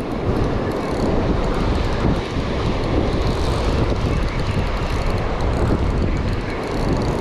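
Steady wind buffeting the microphone, with surf washing on the beach behind it.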